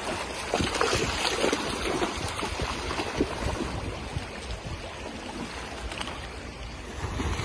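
Water splashing as a Siberian husky wades and bounds through a shallow river, over a steady rush of flowing water.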